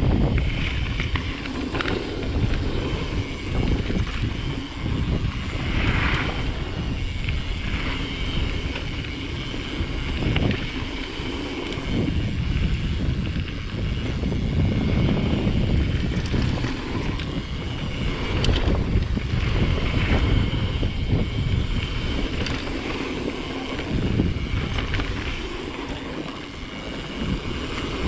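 Mountain bike rolling fast down a packed-dirt trail: wind buffeting the action-camera microphone over the rumble of the tyres on the dirt, rising and falling with the terrain.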